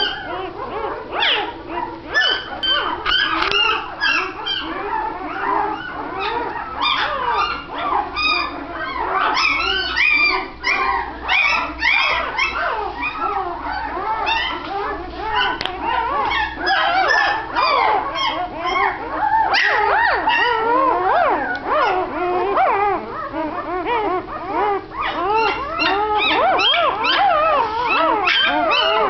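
A litter of newborn puppies crying, many short high-pitched whines overlapping without a break.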